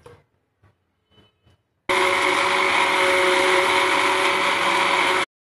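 A countertop blender with a glass jug runs steadily for about three and a half seconds, blending a liquid mint-lemon and soda water mix. It starts abruptly about two seconds in and cuts off suddenly near the end. A few faint knocks come before it.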